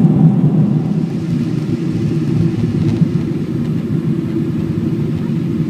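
Steady low cabin noise of a Boeing 777-200 airliner in flight, heard from a window seat over the wing: engine drone and rushing air. It drops a little in level about a second in.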